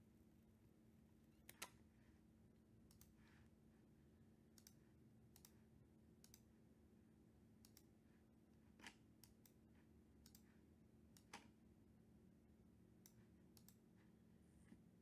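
Near silence, room tone with about a dozen faint, sharp clicks at irregular spacing; the loudest comes about a second and a half in.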